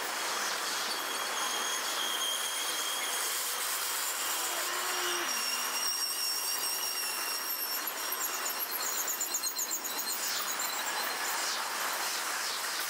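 Steel railroad wheels squealing on curved track: several thin, high-pitched squeals that come and go over a steady hiss.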